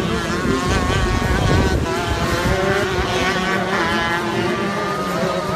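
Shifter karts' 125cc two-stroke engines running hard, several at once, their pitch rising and falling as they accelerate and back off.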